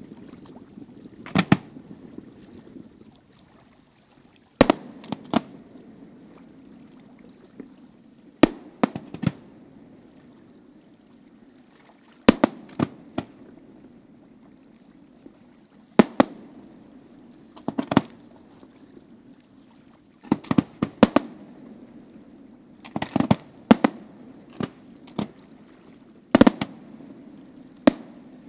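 Fireworks display: aerial shells bursting with sharp bangs at irregular intervals, some in quick pairs and clusters, over a steady low background noise.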